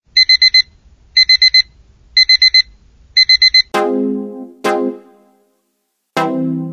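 Electronic alarm clock beeping in quick groups of four, four groups about a second apart. Then three keyboard notes ring out one after another and fade as background music begins.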